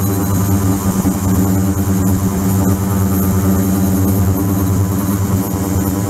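Ultrasonic cleaning tank running with water flowing through it: a steady buzzing hum with a high hiss over it.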